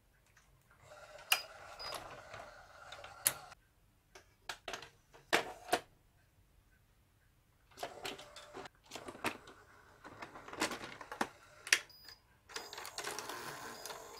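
Hitachi VT-S1000 S-VHS VCR's motorised cassette drawer opening with a mechanical whir and clicks. About halfway through, sharp clacks as a VHS cassette is set into the tray. Then the drawer runs closed and the loading mechanism draws the cassette in, whirring and clicking.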